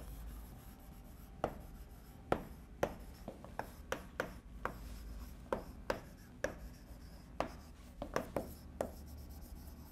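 Chalk writing on a blackboard: a string of short, sharp, irregular taps and scratches, about two to three a second, starting about a second and a half in.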